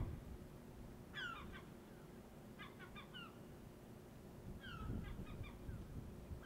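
Birds calling in three short bouts of quick, falling notes, about a second, three seconds and five seconds in, over a low steady rumble.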